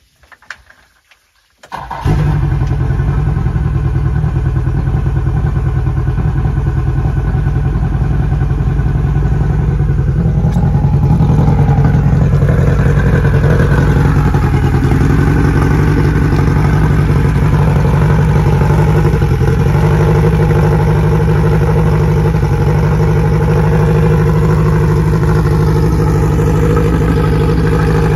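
2004 Yamaha 90 hp four-stroke outboard, on flushing water, cranked with a newly fitted starter relay. A few faint clicks, then it fires almost at once, about two seconds in, and runs steadily.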